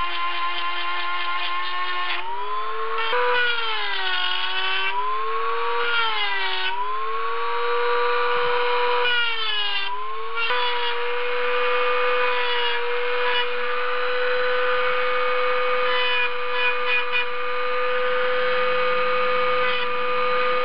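Kawasaki 1.0 amp rotary tool with a grinding bit, roughing in the primary intake port of a Mazda rotary engine's GSL-SE center iron. Its motor whine rises in pitch, then sags and recovers several times in the first half as the bit bites into the metal, and holds steady at a higher pitch after that.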